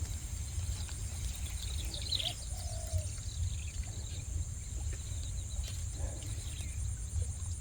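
Outdoor ambience: a steady high-pitched drone, typical of insects, with scattered short bird chirps and a low rumble underneath.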